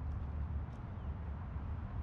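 Steady, choppy low rumble of wind on the microphone, with a few faint light ticks.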